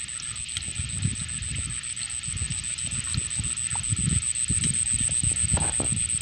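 Hands moving in shallow muddy swamp water at an eel hole, making an irregular run of soft low sloshes and squelches that grow livelier in the second half. A steady high-pitched whine runs throughout.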